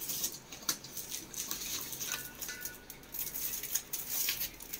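Soft rustling and many small light clicks of cloth and packets being handled close by.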